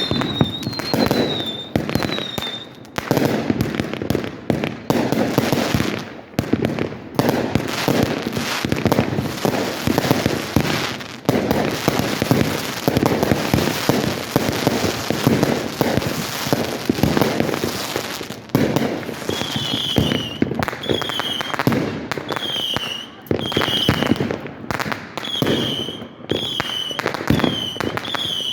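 Fireworks going off in a dense run of bangs and crackling. Near the start, and again through the last third, short high chirping tones repeat about once a second over the bangs.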